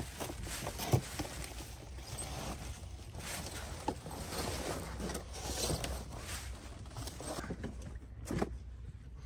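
Rustling and handling of camping gear and tent fabric as someone rummages at a tent entrance, with a few sharp knocks, the loudest about a second in and another near the end, over a steady low rumble.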